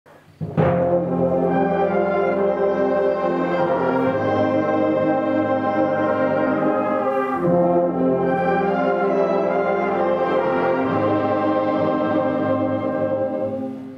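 Youth wind band of brass and woodwinds playing held chords together. The music starts about half a second in and dies away just before the end.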